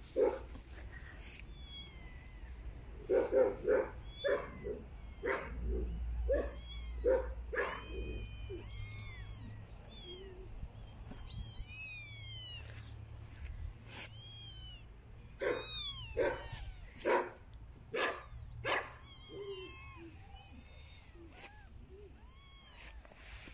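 Young kittens mewing over and over in short, high-pitched calls, several overlapping in quick clusters.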